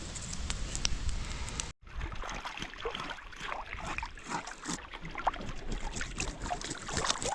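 Water gurgling and bubbling with many small, irregular ticks and pops. For the first couple of seconds, wind rumbles on the microphone.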